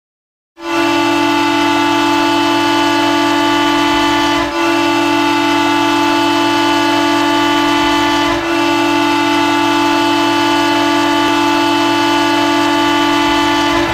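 Ice hockey arena goal horn sounding one low, steady blast that starts about half a second in and holds for some thirteen seconds, dipping briefly twice.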